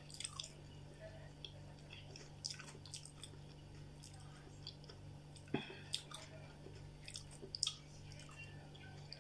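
Close-miked chewing of a mouthful of soft stewed cabbage and potatoes: faint, scattered wet mouth clicks and smacks over a steady low hum.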